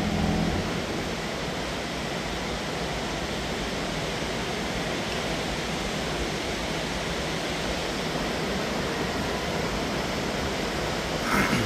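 Tour boat moving along an underground river: a steady, even rushing noise with a faint low hum underneath.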